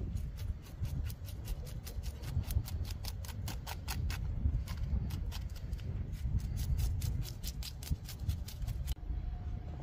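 A knife blade scraping scales off a small croaker in quick, regular strokes, about six a second, which stop near the end.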